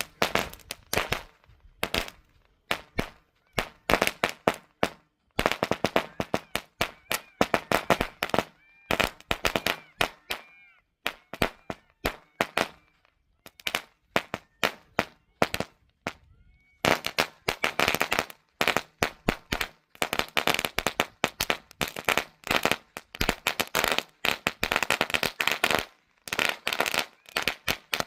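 A 2000-wala string of firecrackers going off: rapid sharp bangs in dense rattling clusters with short lulls between them, thinning out around the middle and coming thick again later on.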